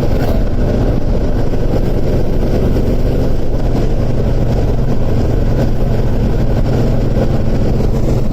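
1980 Dodge Dart's V8 engine running steadily while driving on the road, its exhaust giving a deep, even rumble.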